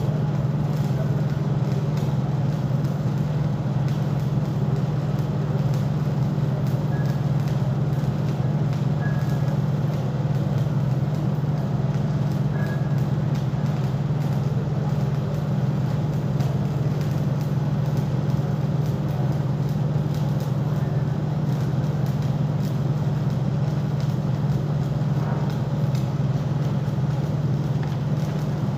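A machine running steadily, a low unchanging drone that does not rise or fall, with a haze of noise above it.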